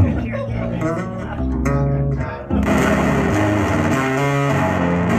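Live electric guitar playing slow, sustained notes. About two and a half seconds in, a loud hiss from a guitar effects pedal that was knocked on by accident joins the notes.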